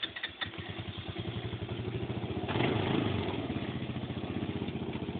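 Tomberlin 300 ATV engine just started, firing unevenly for the first half second and then settling into a rhythmic idle. About two and a half seconds in it is revved up briefly, then eases back to idle.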